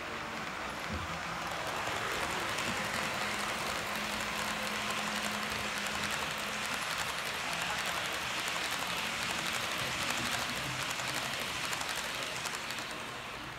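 Model passenger train rolling past on the layout track: a steady rush of metal wheels on rails, swelling as the train nears and fading near the end as it passes.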